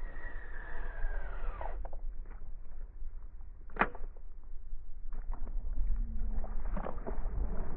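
Baitcasting reel spool whirring on a cast, its whine falling in pitch and stopping about two seconds in as the lure lands. Then a single sharp knock near the middle and a run of light clicks and small splashes as the topwater frog is worked back, over steady low wind rumble.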